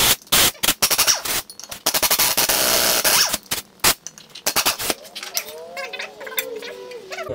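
Pneumatic impact wrench hammering on a bolt in a brake rotor and hub assembly. It rattles in several short bursts, then runs steadily for about a second and a half, with one more short burst about four seconds in. Lighter metal clatter follows.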